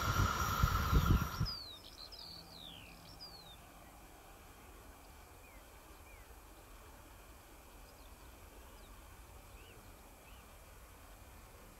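Running noise of a CRRC Bison electric locomotive fading away just after it has passed, with a few low thumps. About a second and a half in it gives way to quiet open-country background with birds chirping a few short falling notes.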